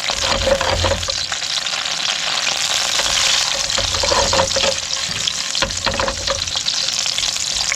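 Diced beetroot sizzling in hot oil in a frying pan, with a steady hiss and frequent small crackles.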